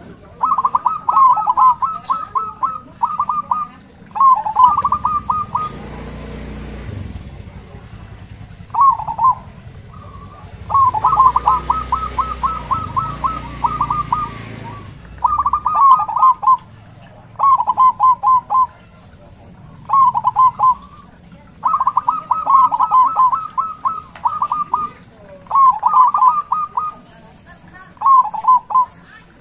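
Zebra dove singing its cooing song: about ten phrases of rapid, repeated staccato coos, each one to a few seconds long, with pauses between them. A low background rumble swells twice, a few seconds in and again around the middle.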